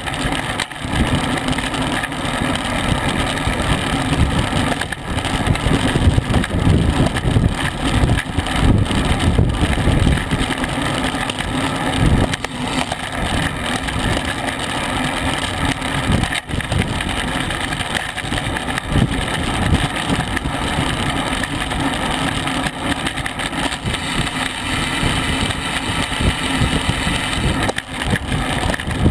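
Wind rushing and buffeting over the microphone of a camera on a racing bicycle moving at about 22 to 26 mph, a steady, uneven rumble with road noise underneath.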